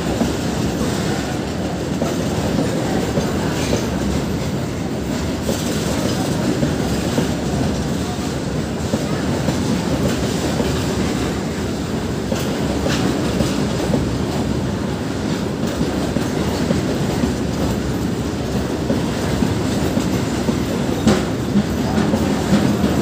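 Goods train of tank wagons rolling past: a steady rumble of steel wheels on the rails, with a few sharp clicks and clanks now and then.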